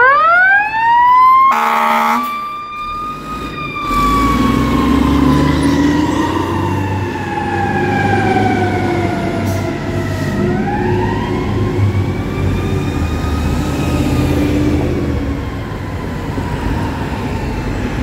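Fire engine siren winding up to a high pitch, cut by one short air horn blast about two seconds in. The siren then slowly falls, winds up again about ten seconds in and falls off once more, over the rumble of the truck's engine.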